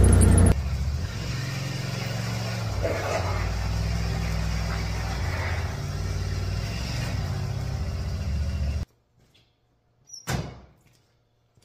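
Yamaha Wolverine side-by-side's 850 twin engine idling steadily, after half a second of louder in-cab driving noise; the engine sound stops abruptly about nine seconds in, followed a second later by a single thump.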